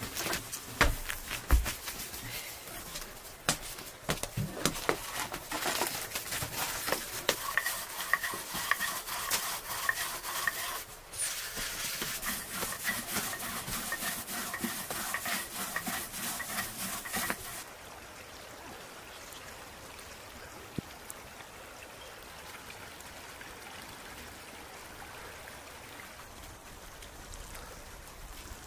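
Wood fire crackling and popping in a tandoor under a loud hiss, with sharp clicks. About two-thirds of the way through it cuts to a quieter steady hiss.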